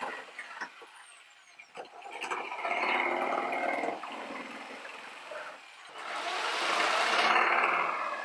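Tacklife PJS04A corded electric jigsaw cutting through a table top. It is quieter for about a second near the start, then louder in two stretches, the second one from about six seconds in being the loudest.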